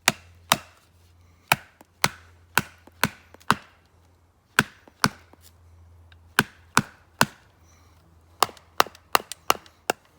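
Batoning: sharp knocks of a baton on the spine of a bushcraft knife, driving the blade down through a thick piece of pine to split it. About eighteen strikes, roughly two a second, coming in short runs with brief pauses between.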